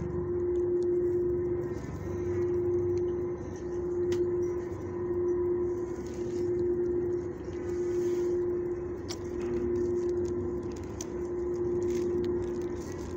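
A steady machine hum that swells and fades about once every second and a quarter, with a few faint clicks.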